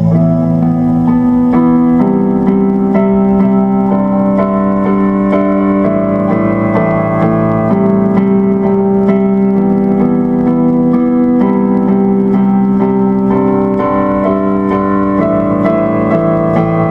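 Background music played on an electric piano or keyboard: held chords with a light run of notes over them, changing every second or two.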